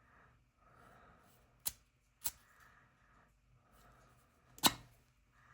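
Metal clicks from handling a Zippo lighter as its insert is wiggled in and out of the case: three sharp clicks, the loudest near the end, with faint soft hiss between them.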